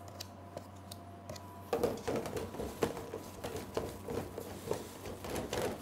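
Thick almond paste being hand-stirred in a stainless steel bowl, with repeated irregular scraping and knocking strokes of the utensil against the bowl starting a little under two seconds in.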